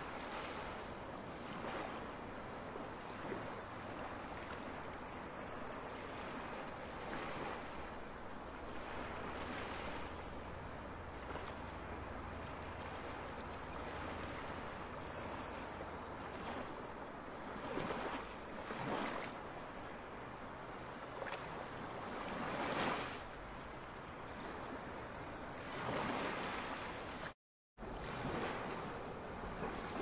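Ocean surf: a steady wash of waves, with several louder waves swelling and falling away in the second half. The sound cuts out briefly near the end.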